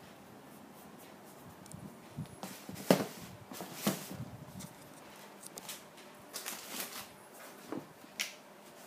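Sneakers being handled and set down on their cardboard shoebox: scattered soft knocks, taps and rustles, the loudest knock about three seconds in.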